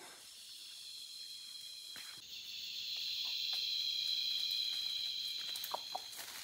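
Steady high-pitched chorus of rainforest insects, several buzzing tones layered together, growing louder about two seconds in and easing off toward the end. A few faint snaps and rustles of leaf litter come near the end.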